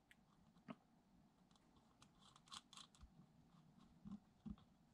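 Faint, scattered clicks and taps of small hardware being handled: washers being fitted onto the hinge pins of a metal RC suspension mount block, with near silence in between.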